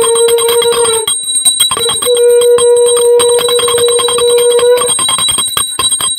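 A bell rung rapidly and continuously for the aarti: a steady ringing tone over fast, repeated clapper strikes. It breaks off for about a second near the start, then resumes and cuts off suddenly at the end.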